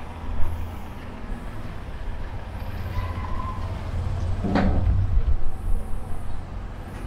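Low rumble of a motor vehicle on the street, swelling about four seconds in, with one sharp knock partway through.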